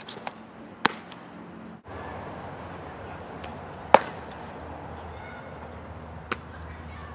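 Fastpitch softball pitches smacking into a catcher's leather mitt: a sharp pop a little under a second in and a louder one about four seconds in. A fainter pop comes near the end as the ball is thrown back and caught.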